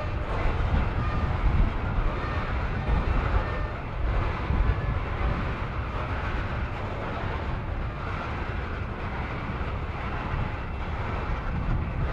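A freight train of tank cars rolling past: a steady low rumble of steel wheels on the rails.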